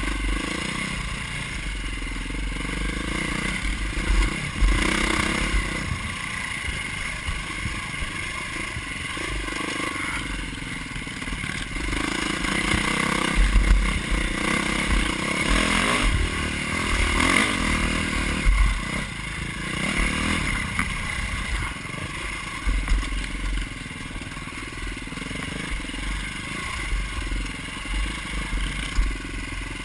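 KTM dirt bike engine, heard from on board, revving up and down as it is ridden over a rough trail, with rattling and knocks from the bumps.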